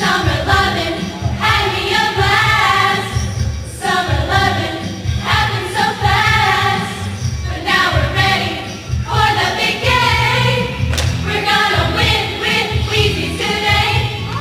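Recorded pop music with singing voices in phrases about every two seconds over a steady beat.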